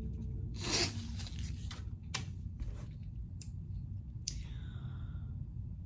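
A paper napkin rustling as it wipes the mouth and hands. The loudest rustle comes under a second in, followed by a few short soft clicks, all over a steady low hum.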